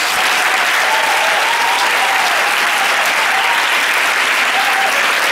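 Large audience applauding, a dense, steady clapping that holds at a constant level.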